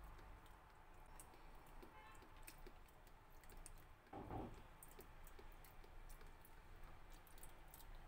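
Faint sound of milk being poured from a carton onto dry cereal flakes in a coconut-shell bowl, with scattered soft crackling clicks and one short louder sound about four seconds in.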